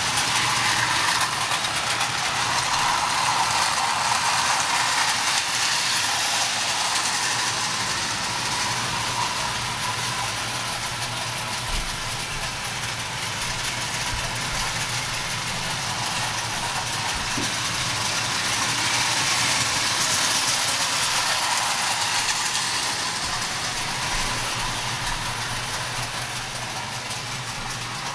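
Marx tinplate O-gauge electric toy trains running on three-rail tin track: a steady whirring rattle of the small motors and wheels, over a low steady hum.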